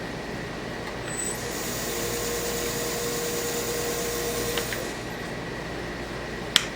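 Powermatic 3520C wood lathe running. It grows louder with an added steady whine from about one second in, then settles back to a lower hum about five seconds in. A sharp click near the end.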